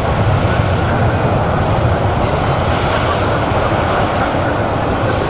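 Aircraft engines running, a loud, steady, deep noise that holds even throughout.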